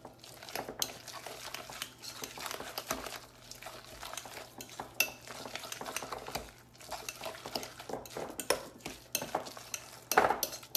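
A spoon stirring a thick ricotta and spinach filling in a mixing bowl, with irregular clinks and scrapes of the spoon against the bowl, plus a louder knock near the end.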